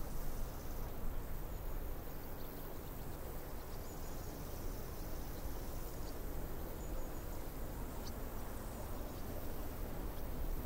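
Steady wash of breaking surf and rushing whitewater, with a few faint high chirps scattered through it.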